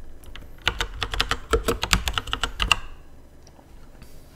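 Typing on a computer keyboard: a quick run of keystrokes that starts under a second in and lasts about two seconds.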